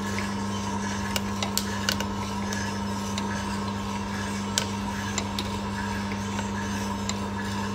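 Small drum sample coffee roaster running with a steady hum. Scattered sharp pops of the beans in first crack mix with metal clinks of the sampling trier spoon.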